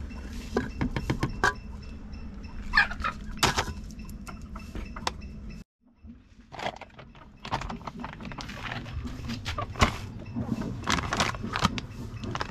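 Handling noises over plastic buckets of feed: loose bran feed dropping into a bucket, then a foil supplement sachet crinkling, with scattered clicks and rustles. The sound cuts out abruptly for about a second a little before the middle.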